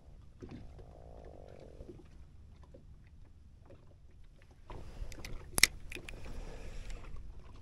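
Spinning fishing reel being handled and cranked: a faint whirring starts about five seconds in, with one sharp click partway through. Underneath is a faint, low, steady rumble.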